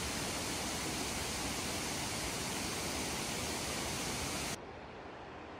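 Steady rush of water, an even hiss with no gusts. About four and a half seconds in it cuts abruptly to a quieter, duller rush.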